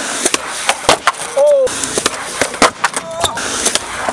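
Skateboard wheels rolling on rough concrete with a steady hiss, broken by repeated sharp clacks of the board and trucks striking the concrete.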